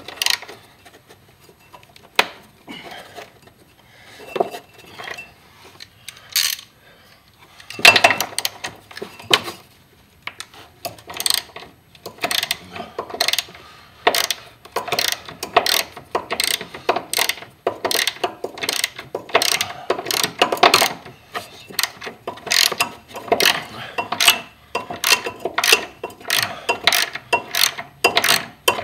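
Hand ratchet clicking on its back-strokes while loosening the upper mounting nut of a rear shock absorber. Sparse clicks at first, then a steady run of short stroke-by-stroke clicking from about a third of the way in.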